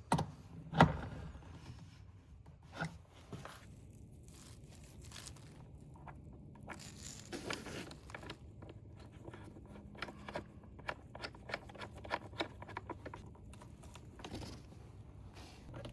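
Scattered handling noises: rustling scrapes, crinkles and small knocks, with one sharp knock about a second in.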